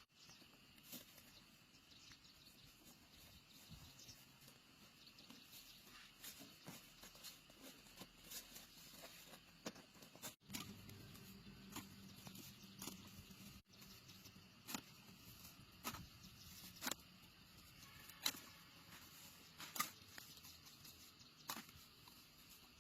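Faint, irregular clicks and light taps over quiet room tone, scattered through the whole stretch, with a few louder sharp ticks in the second half.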